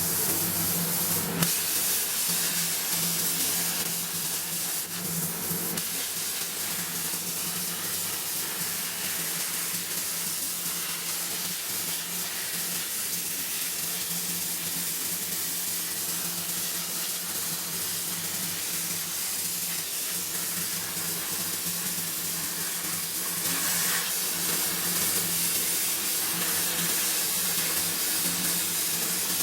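Steady hiss over a steady low hum, getting louder about 24 seconds in.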